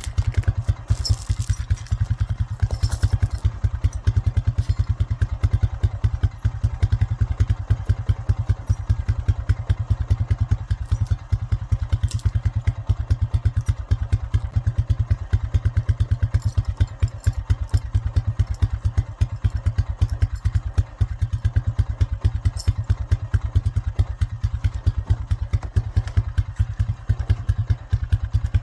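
ATV (quad) engine running at a low, steady speed, with a fast, even beat of exhaust pulses.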